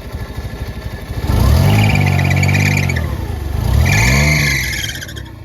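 Suzuki Multicab's three-cylinder engine running after a crank-no-start fault, now that the fuel pump primes. It idles for about a second, then is revved up and let back down twice.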